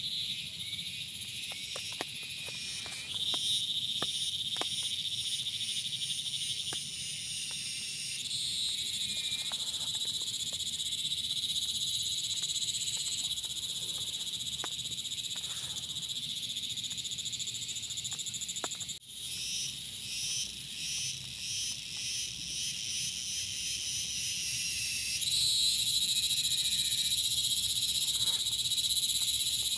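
Evening chorus of insects: many shrill, steady trills layered high up, with frogs calling. About two-thirds through, it drops out for an instant and then comes back pulsing for a few seconds, getting louder near the end.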